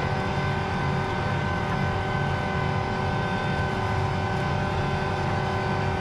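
John Deere 8270R tractor's six-cylinder diesel engine running steadily under load, pulling a mole plough through the soil at a slow working pace.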